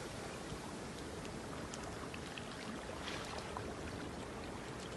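Small sea waves washing and trickling around shoreline rocks: a steady, gentle wash of water with a few faint splashes.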